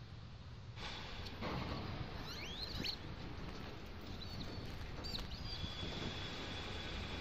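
Outdoor ambience of a low wind-like rumble with several short squeaky bird chirps, which change sound about a second in at a cut. From past the middle, a thin steady high tone runs under it.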